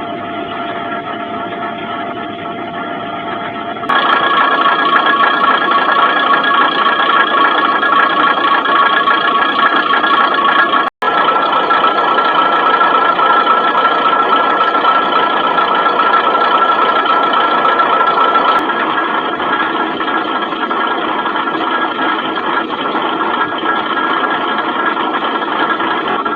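Diesel railcar engine running steadily, heard through a feature phone's microphone. It jumps louder about four seconds in and drops out for a moment near the middle.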